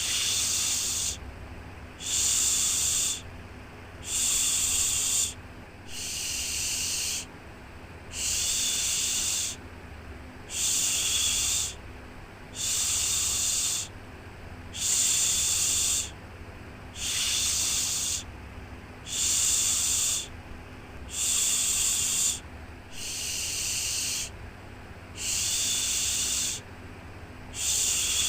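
Rhythmic 'shhh' shushing to soothe a baby: a breathy hiss about a second long, repeated every two seconds or so, over a steady low rumble.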